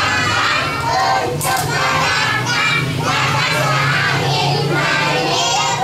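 A group of young children singing together loudly, close to shouting, their voices overlapping without a break.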